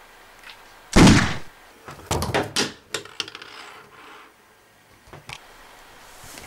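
A loud thump about a second in, then a quick run of knocks and clatters over the next two seconds, with a few fainter knocks near the end.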